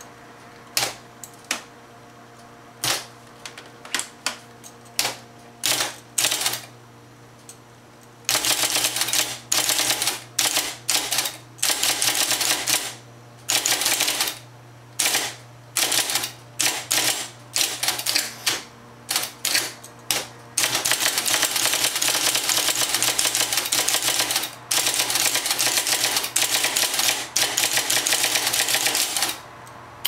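IBM Personal Selectric electric typewriter being typed on, its type-ball element clacking against the paper. Slow single keystrokes for about eight seconds, then fast continuous typing in runs with short pauses, over the steady hum of its running motor.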